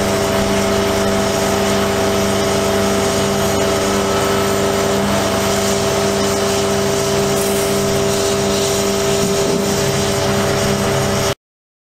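Truck engine running at a steady speed, a constant droning hum with a steady whine over it; it cuts off suddenly near the end.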